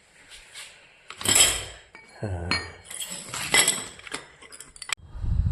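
Steel parts of an oil expeller being handled, clinking and clanking against one another in several separate knocks with a metallic ring, the loudest about a second in.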